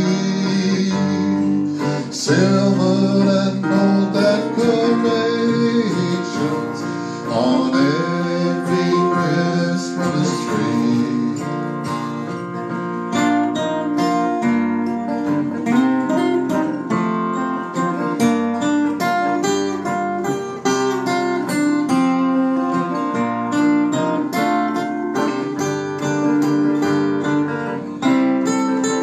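Two acoustic guitars playing an instrumental passage: strummed chords under a picked lead line, with a few bent notes.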